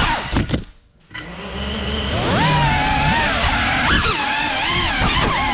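FPV quadcopter's brushless motors and propellers whining, the pitch rising and falling with the throttle. About half a second in, after a couple of knocks, the motors cut out almost to silence, then spin back up with a rising whine.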